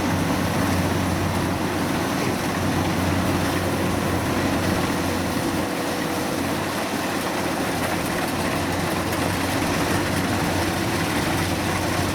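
Diesel engine of a Kubota rice combine harvester running steadily at an even pace, a constant low hum with no revving.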